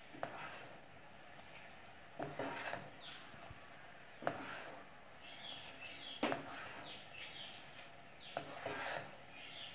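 A spoon stirring and scraping around a pan of boiling coconut-water and sugar syrup, with a stroke about every two seconds. The syrup is being stirred constantly as it reduces toward treacle, to keep a white crystallised layer from forming on top.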